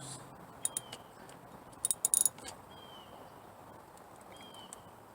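A 12 mm wrench working a car battery terminal bolt, giving a couple of short metal clicks under a second in and a quick cluster of clicks around two seconds in. Faint bird chirps sound in the background.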